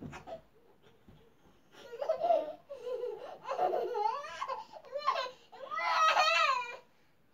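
A baby laughing in a string of high-pitched bursts, starting about two seconds in and loudest near the end.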